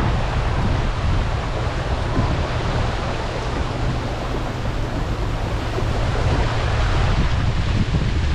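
Steady rush of heavy rain and wind, with a low rumble of wind buffeting the microphone.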